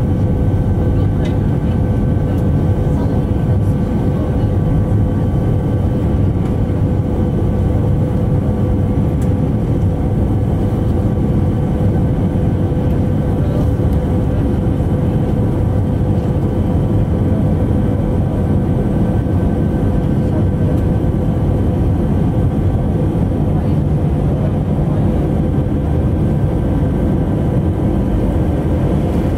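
Airbus A319 cabin noise during the climb after takeoff: the jet engines and rushing air make a steady loud rumble, with a few constant whining tones from the engine over it.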